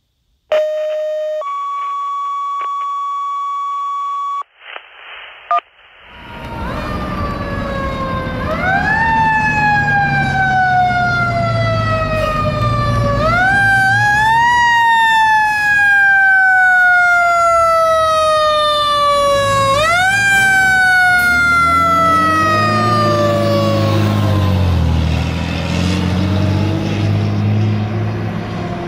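Two steady electronic tones open, a short lower one and then a longer higher one. Then a 2003 KME fire engine pumper's siren wails, sweeping slowly up and falling away in pitch again and again, over the truck's engine rumble, with a deeper tone winding up and down about two-thirds of the way through.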